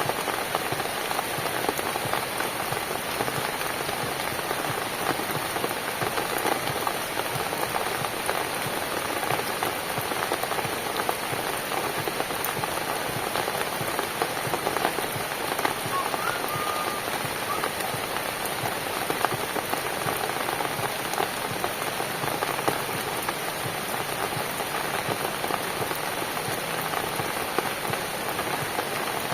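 Steady rain: an even hiss with a dense patter of individual drops.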